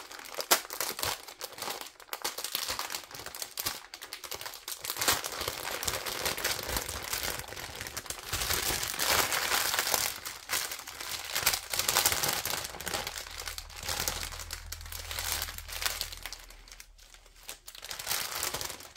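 Small plastic bags of diamond-painting drills crinkling and rustling as they are handled, with irregular sharp crackles throughout.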